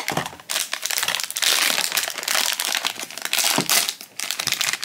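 Foil blind-box bag crinkling as it is handled and pulled from its cardboard box, a dense run of crackles that is loudest in the middle.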